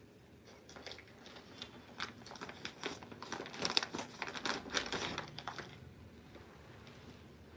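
Clear plastic packaging crinkling and rustling as a folded cloth suit is handled. It is a dense run of crackles that starts about a second in, is loudest around the middle and dies away near six seconds.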